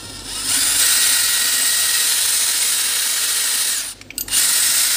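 Cordless drill boring an 8 mm hole through a flat aluminium window tie-rod. The motor winds up within the first second and runs with a steady whine, stops briefly about four seconds in, then starts again.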